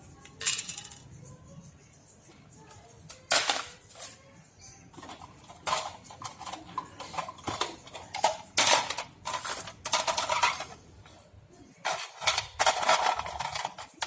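Small hand tools and plastic phone-casing parts clinking and scraping in short, irregular bursts, as the phone is worked on.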